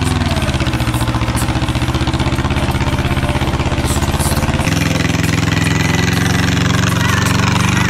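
Cub Cadet 129D garden tractor's Yanmar diesel engine running steadily with an even, fast pulse while pulling a trailer loaded with walnut logs. The engine note shifts slightly just past halfway.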